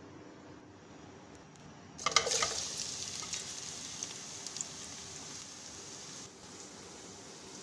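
Chopped red onions going into hot oil in a pot: a sudden loud sizzle with crackling about two seconds in, settling into a steady frying hiss.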